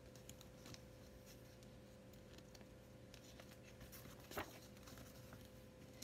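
Near silence: quiet room tone with a faint steady hum and a few faint ticks, and one brief soft paper sound about four seconds in as a hardback picture-book page is turned.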